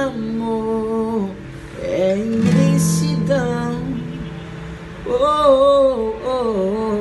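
A man singing long, sliding notes over a strummed acoustic guitar, in three phrases with short pauses between them.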